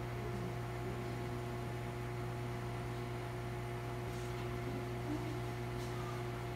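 Steady electrical hum: a low drone with fainter, higher steady tones above it that do not change, and two faint clicks about four and six seconds in.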